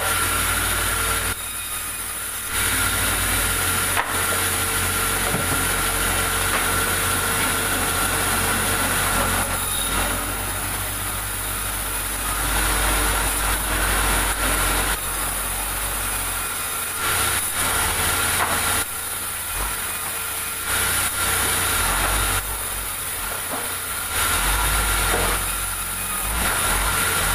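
Sawmill saw cutting through a large log: continuous cutting noise of the blade in the wood over the machine's steady whine and hum, shifting in level every few seconds.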